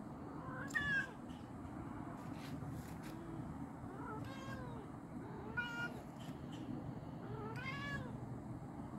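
Domestic cat meowing to call another cat: four drawn-out meows spread over several seconds, each rising and then falling in pitch, the first, about a second in, the loudest.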